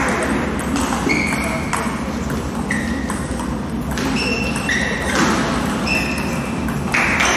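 Table tennis balls pinging off tables and bats at irregular intervals, each a short ringing tick, over a murmur of voices in a large sports hall.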